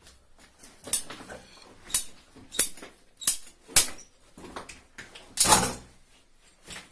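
Sharp knocks and clicks from white plastic water pipes being handled and pushed into channels in a brick wall, about five in a few seconds, then a longer scraping rasp about five and a half seconds in.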